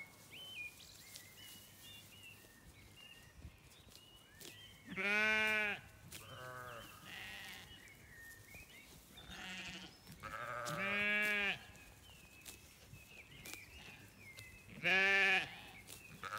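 Zwartbles sheep bleating: three loud, drawn-out bleats about five, eleven and fifteen seconds in, with fainter bleats between them. Small bird chirps run faintly underneath.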